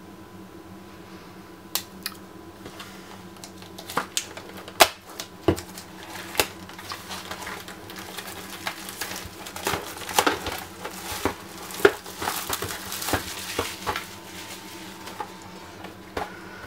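Cardboard and plastic packaging being opened by hand with a pocket knife: scattered clicks and knocks at first, then a busy stretch of scraping and crinkling with more sharp clicks in the middle.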